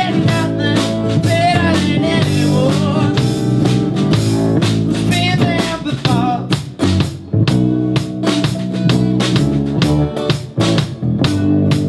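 Rock band playing: drum kit with regular hits, and guitars and bass sustaining chords. A wavering melody line rides over the first half.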